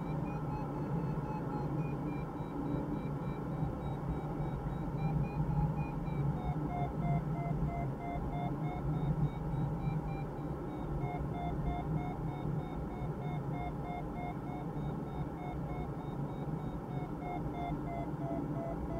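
A glider's audio variometer beeping: a steady string of short electronic beeps whose pitch drifts slowly down and up with the rate of climb. Under it, steady cockpit airflow noise with a low rumble.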